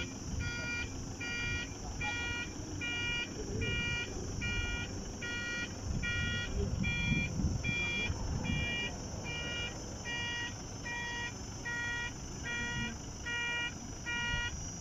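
Electronic warning beeper sounding steadily at a little over two beeps a second, each beep a chord of several high pitches, over a low rumble.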